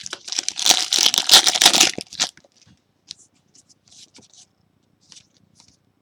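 A trading-card pack's foil wrapper being torn open and crinkled for about two seconds, followed by faint light ticks as the cards are handled.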